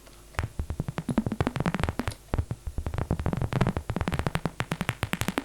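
Synthesized paper-crumpling sound from the Vital software synthesizer: a dense, irregular train of sharp clicks and short low pops, starting about half a second in. It sounds underwater, like a bubbly effect rather than paper.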